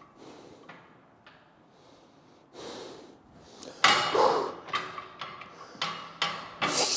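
Heavy, forceful breathing: a run of loud puffs and exhales starting about two and a half seconds in, with a few sharp knocks of gym equipment among them.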